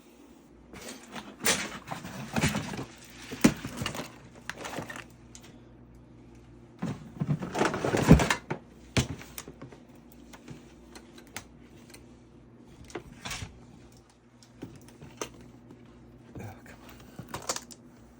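Lock pinning kit cases and their small metal parts being handled: irregular clicking and rattling, busiest in two spells in the first half, with a steady low hum underneath.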